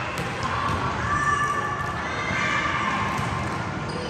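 Basketball players shouting and calling out over one another on the court, with short flat squeal-like tones mixed in.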